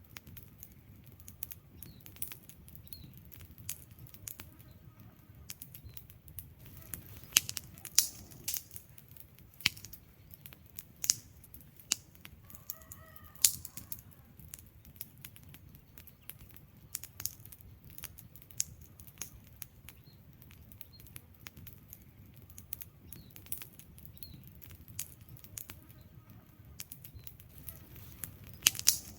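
Burning wood logs crackling: irregular sharp pops and snaps over a low, steady rustle of the flames. A handful of louder snaps stand out among them.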